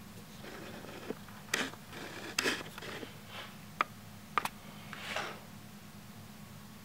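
Handling noise from a smartphone in a plastic case being turned over in the hands: scattered soft rustles and scrapes, with a couple of sharp clicks of fingers on the phone and case a little after the middle, over a faint steady hum.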